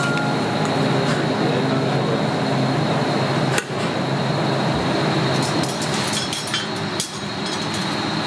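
Steady kitchen background noise with a thin high whine, and a few sharp clinks of a metal spoon against a stainless steel mixing bowl while seafood salad is tossed. The clinks come once a little before the middle and in a cluster past it.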